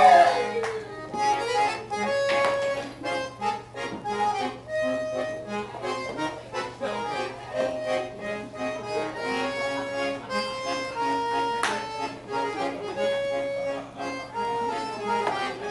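Piano accordion playing a tune: a run of short held notes in a steady rhythm.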